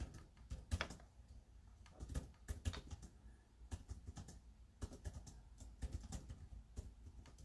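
Faint, irregular clicking of typing on a keyboard.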